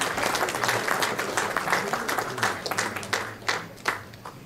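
Audience applauding, thinning out to a few scattered claps near the end.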